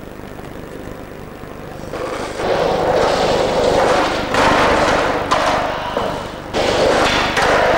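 Skateboard wheels rolling over hard pavement: a loud, rough rolling noise that starts about two seconds in and breaks off and picks up again abruptly a few times.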